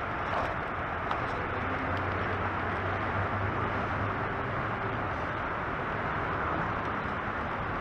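Steady rolling noise of a kick scooter's wheels on a paved path, with a faint low hum.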